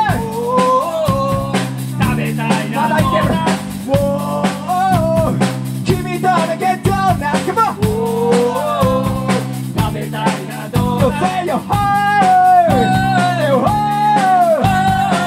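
A rock band playing live: a man singing over electric guitar, bass guitar and a steady drum beat.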